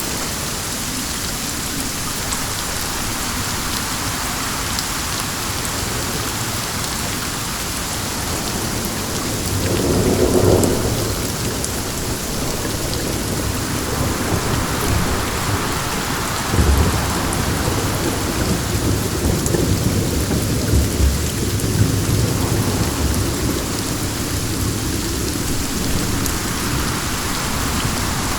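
Steady rain falling, with distant thunder: a short roll of thunder about ten seconds in and a longer, uneven rumble a few seconds later.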